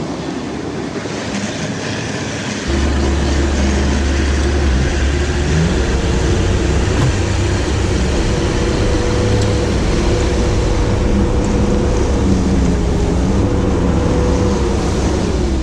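Sherp all-terrain vehicle's diesel engine running as it drives over river ice, its pitch rising and falling with the throttle over a steady low rumble. The sound jumps louder about three seconds in.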